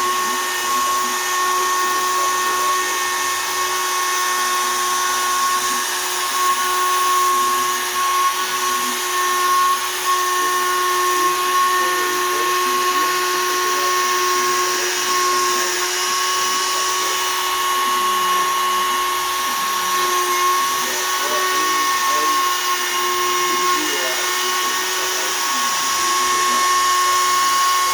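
Shapeoko 3 XL CNC router's spindle whining steadily at about 20,000 rpm while a 1/8 in two-flute downcut spiral bit cuts poplar.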